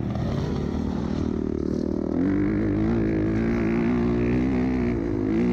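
Off-road vehicle engine running, settling into a louder, steady, slightly wavering note about two seconds in.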